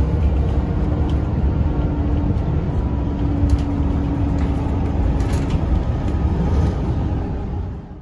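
Road noise inside a car moving at highway speed: a steady low rumble of tyres and engine, fading out in the last second.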